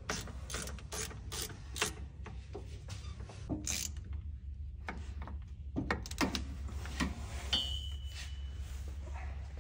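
Hand wrench and ratchet clicking on nuts as they are tightened, quick runs of clicks at first, then sparser clicks and knocks of metal on metal. A steady low hum runs underneath, and a short high squeak sounds about three-quarters of the way through.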